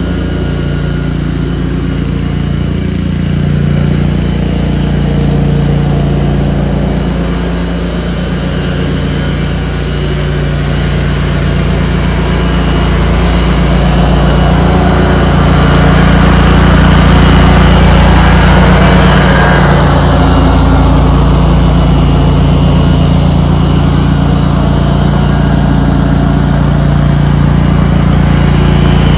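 Cub Cadet 106 lawn tractor's single-cylinder Kohler engine running steadily under load with the mower deck cutting grass. It grows louder and noisier about halfway through, then eases a little.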